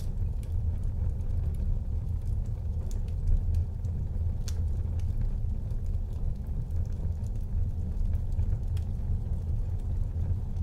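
Wood fire burning in a fireplace: a steady low rumble of flames with scattered crackles and pops, the sharpest about four and a half seconds in.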